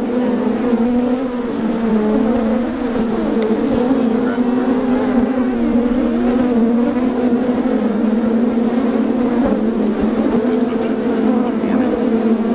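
Honeybees buzzing in a mass on a frame lifted from an open hive: a loud, steady hum made of many overlapping, slightly wavering pitches.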